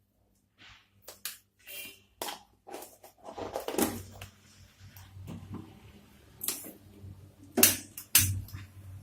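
Metal spoon scraping and knocking against a cooking pot as the biryani mixture is stirred: a string of irregular scrapes and clicks, with the sharpest knocks near the end.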